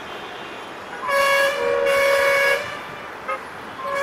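Horn of an ALCO WDM-3A diesel locomotive sounding one loud blast of about a second and a half as the train approaches, then a very short toot and a second blast starting near the end.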